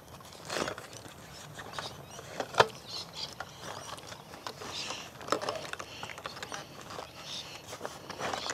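Hand air pump being pulled out of a nylon carry bag: fabric rustling with scattered plastic clicks and knocks, the sharpest about two and a half seconds in.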